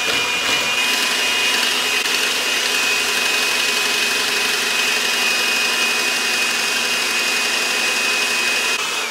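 Electric hand mixer running steadily with a constant whine, its beaters whipping egg whites and sugar in a plastic bowl toward stiff peaks for macaron meringue. It stops near the end.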